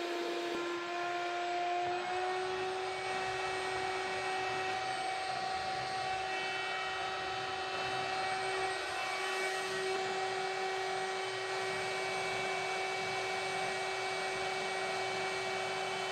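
Shop-vac motor of a homemade mini cyclone dust collector running steadily, drawing air through a 4-inch intake hose: a whining hum over a rush of air. Its pitch steps up slightly about two seconds in.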